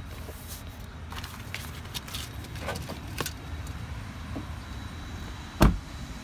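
Light clicks and rustles over a low steady rumble, then a car door slamming shut once, about five and a half seconds in: the rear side door of a 2018 Chevrolet Tahoe.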